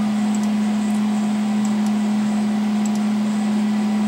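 Steady low hum held at one pitch over a faint hiss, with a few faint ticks.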